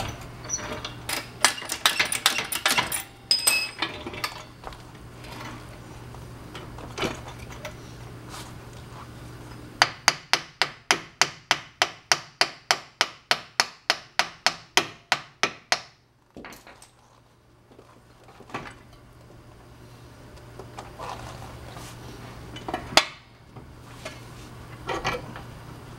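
Hammer striking the end of a CV axle in the front wheel hub to drive it out of the hub splines. It goes as a fast, even run of blows, about four or five a second for some six seconds, with scattered metal clanks and ringing before it and one loud blow near the end.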